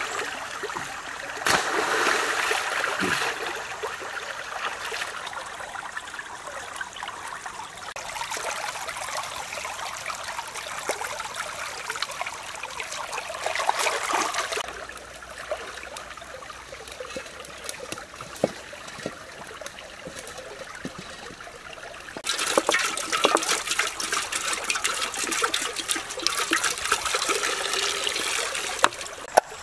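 Shallow stream running and splashing as things are moved and rinsed in the water. From about 22 seconds in it turns louder, with many small splashes, as water streams into a metal wok.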